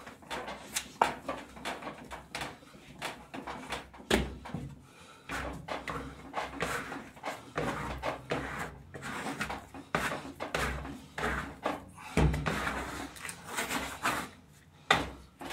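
Sweet rosca bread dough being mixed and worked by hand on a work surface: irregular slaps and knocks, with a heavier thump about four seconds in and another about twelve seconds in.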